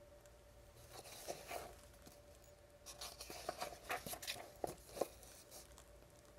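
Paper pages of a picture book being turned by hand: soft rustling and crinkling with a few light taps, in two spells, about a second in and again between three and five seconds in.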